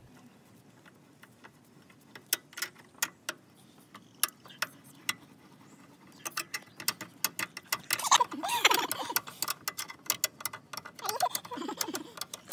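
Scissor jack being cranked down by its hook-ended handle: a run of sharp metallic clicks, a few a second, from the handle turning in the jack's drive eye, growing denser and louder about eight seconds in.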